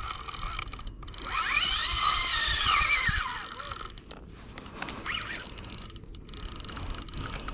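Spinning fishing reel whirring as line runs off it: a whine that rises and then falls in pitch over about two seconds, with a shorter, fainter whir a few seconds later.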